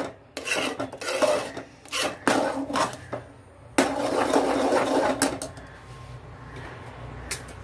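Steel spoon scraping and stirring in an aluminium pot of thickened milk as sugar is stirred in. The rasping strokes are irregular and strong for the first five seconds or so, then softer.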